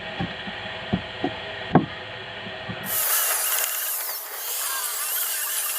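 A few sharp knocks on wood. About three seconds in, a power tool starts running with a loud hissing whine that wavers in pitch.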